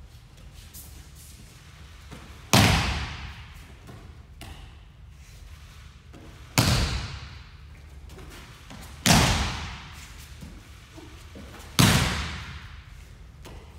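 Aikido breakfalls: a thrown partner hits the tatami mats four times, every few seconds, each a sharp thud with a reverberating tail.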